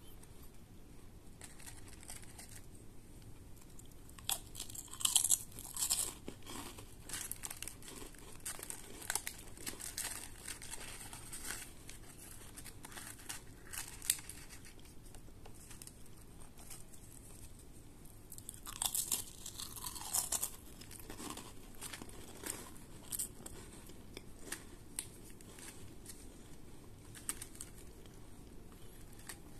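Crisp coffee biscuits being handled in a thin clear plastic tray: scattered crackles and clicks of the plastic and biscuits rubbing against each other as one is slid out and back in. The handling is louder about five seconds in and again around nineteen to twenty-one seconds.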